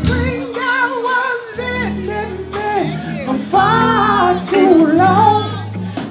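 Live band playing: a man singing with a wavering vibrato over electric guitar and keyboard, with a sustained low bass line.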